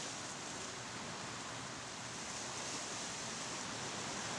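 Sea surf washing over shoreline rocks: a steady, even hiss of water without distinct wave surges.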